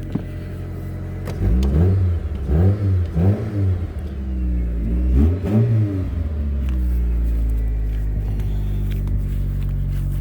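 The petrol engine of a 1999 Mitsubishi Pajero iO idles, then is revved in several quick blips: three about a second and a half in, two more around five seconds. It then settles back to a steady idle. It is running again after a bad high-pressure fuel pump stopped it from starting.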